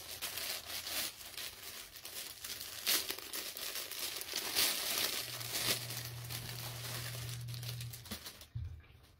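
Plastic packaging crinkling and rustling as a mailer bag is handled and a garment in a clear plastic bag is pulled out and unwrapped, with tearing sounds; it stops shortly before the end. A low steady hum runs under it for about three seconds in the middle.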